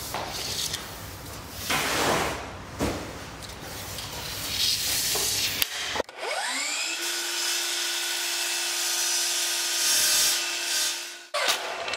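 A long wooden moulding slides and rubs against the miter saw's fence and table as it is measured and set in place. About six seconds in, the DeWalt FlexVolt sliding miter saw's motor switches on with a rising whine, runs steadily and cuts through the moulding, then stops just before the end.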